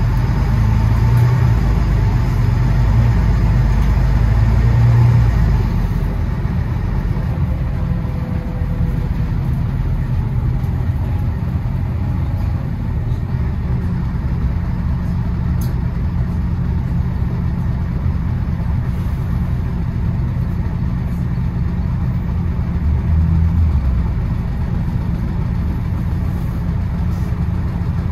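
London bus engine running steadily with a low hum, louder for the first few seconds and again briefly around 23 seconds in, as if pulling away under load.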